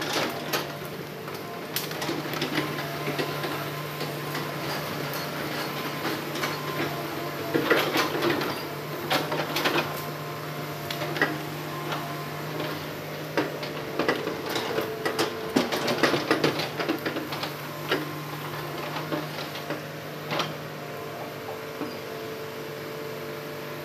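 Hitachi hydraulic crawler excavator's diesel engine running steadily under working load, with bursts of knocking and clatter from the bucket and arm handling logs on stony ground, loudest about a third of the way in and again just past the middle.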